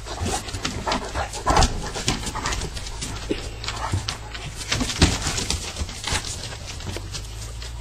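An Alaskan Malamute and a Corgi playing together: a quick, irregular run of short dog noises and scuffles, with a couple of sharper hits along the way.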